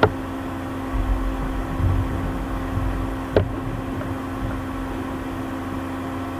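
Steady background hum with a constant low drone and hiss, broken by two sharp clicks: one right at the start and one about three and a half seconds in.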